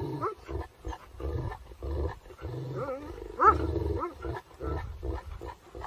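Kangal and Alabai guardian dogs growling at each other in short uneven bouts.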